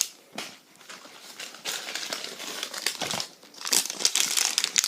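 Plastic wrapping of a collectible toy packet being crinkled and rustled by hand in irregular bursts, louder near the end.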